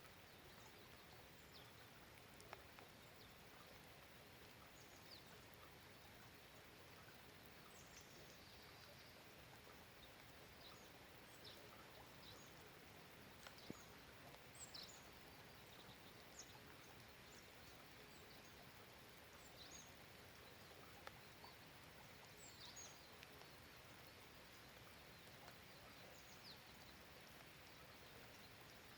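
Faint, steady hiss of light rain, with brief, high, faint chirps of distant birds scattered through it.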